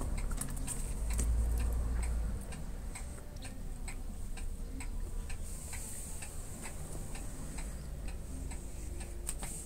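Light, quick ticking, about three sharp ticks a second, with a low rumble for a second or so shortly after it starts.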